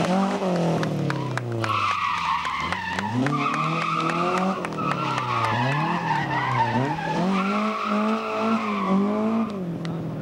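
Opel Manta's engine revving, its pitch climbing and dropping again and again, while the tyres squeal from about two seconds in until near the end as the car slides around cones.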